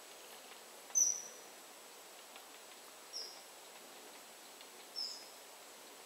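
Great spotted woodpecker giving three short, high calls about two seconds apart, the first the loudest, over a faint steady background hiss.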